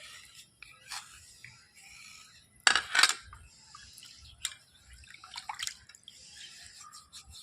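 Water dripping and splashing in short, scattered bursts, with one louder splash about three seconds in.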